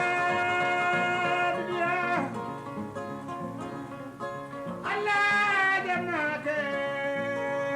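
Kora played in a repeating plucked pattern under a male voice singing in Mandinka. The voice holds long notes that slide downward at the end of each phrase. One phrase ends about two seconds in, and the next begins about five seconds in.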